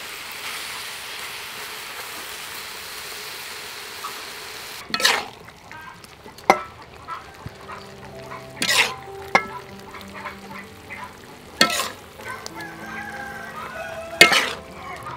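Chicken and vegetables sizzling in a metal wok, a steady hiss that fades after about five seconds. Then a metal spatula scrapes and clanks against the wok about five times as the stir-fry is turned and scooped out.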